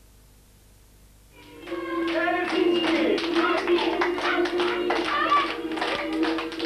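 Hush for about a second and a half, then a group of children clapping in rhythm along with music and voices.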